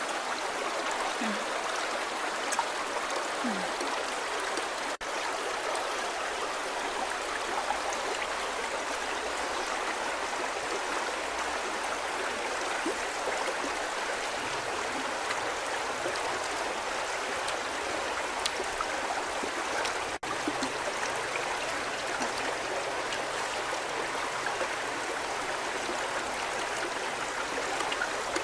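Shallow river running over rocks: a steady, even rush of water.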